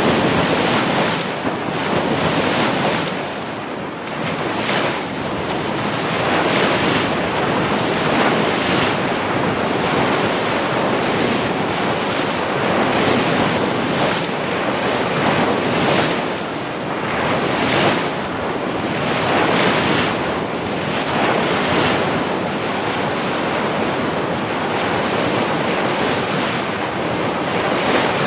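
Ocean surf: waves breaking and washing in a continuous rush that swells and eases, with brief lulls about four seconds in and again past the middle.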